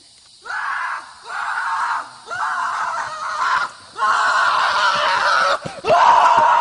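A run of five loud screams, each rising in pitch at the start and lasting up to about a second and a half, with short breaks between them.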